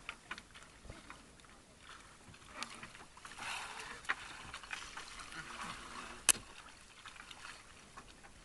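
Sea water sloshing and splashing against a wooden outrigger boat as a gillnet is hauled in hand over hand, with scattered small knocks and one sharp knock a little past six seconds in.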